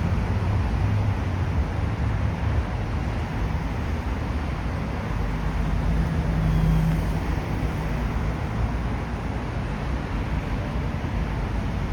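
Steady low rumble of road traffic, with a low engine hum standing out for a moment about six seconds in.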